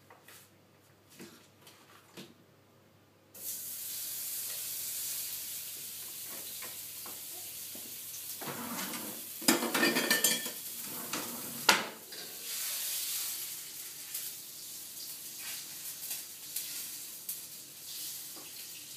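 Butter sizzling in a hot stainless-steel wok: a steady hiss that starts suddenly about three seconds in, as the butter hits the pan. Near the middle a utensil scrapes and clatters against the wok as the butter is stirred around.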